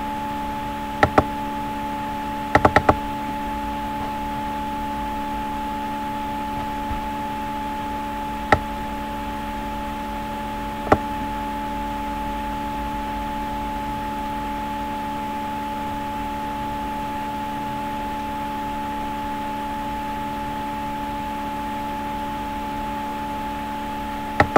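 Computer mouse clicks: a few single clicks and a quick run of three or four, spaced seconds apart, over a steady background hum with several fixed tones.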